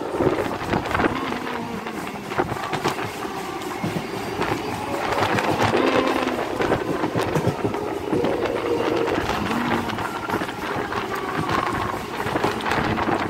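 Passenger train running along the track, heard from on board: a steady rumble and rattle with clicks from the wheels over the rails.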